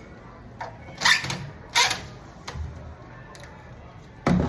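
A series of sharp knocks and clicks at irregular intervals, the loudest near the end.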